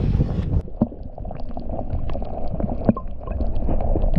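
Wind buffeting the microphone briefly, then the muffled sound of water heard through a submerged camera: a dull steady wash with scattered small clicks and ticks.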